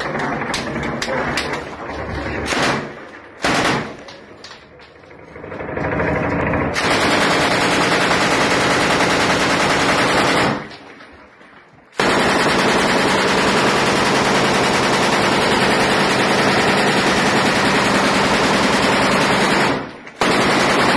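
M240 belt-fed 7.62 mm machine gun fired from inside a room. A few short bursts come in the first seconds, then long sustained bursts of automatic fire, one of about four seconds and one of about eight, with a short pause between, and a last burst near the end.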